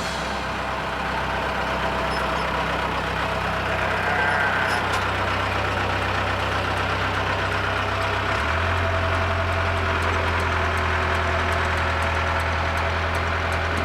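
Heavy construction machine's engine running steadily; its note shifts and grows a little stronger about eight and a half seconds in.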